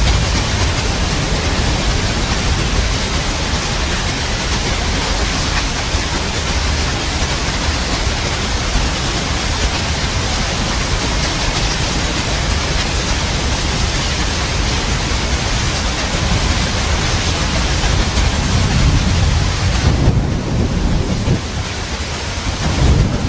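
Steady heavy rain with rolling thunder rumbling low underneath; about twenty seconds in the hiss of the rain thins for a moment while a deep thunder roll swells.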